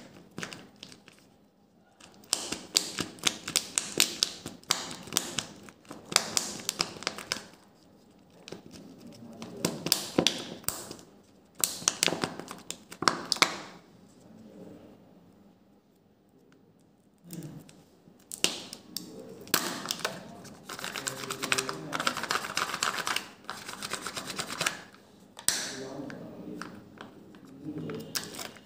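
Crinkling and crackling of a plastic wrapper being torn off a toy-and-candy egg by hand, with clicks of the hard plastic egg shell and a foil lid being peeled back. It comes in bursts of rapid crackles separated by short quiet pauses.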